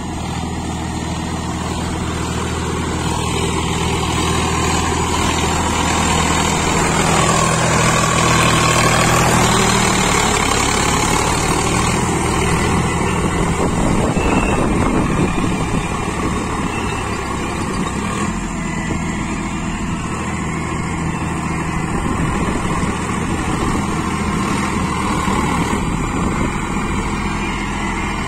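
Sonalika 50 RX Sikander tractor's diesel engine running steadily under load as it pulls a rotavator through wet paddy mud. The engine note grows louder about a quarter of the way in, then eases back.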